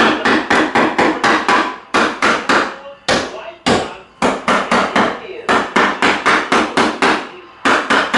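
Claw hammer striking a 2x4 wood blocking frame in quick runs of sharp blows, about four or five a second, with short pauses between the runs.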